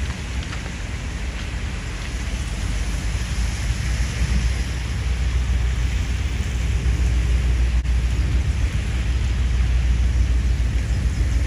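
Steady rain falling, with a low rumble underneath that grows louder about halfway through.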